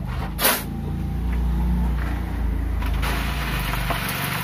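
Sand being shovelled onto a sloping wire sieve screen: a short crash about half a second in, then a steady hiss from about three seconds in as sand hits and runs through the mesh. Underneath is the steady low hum of an engine running nearby.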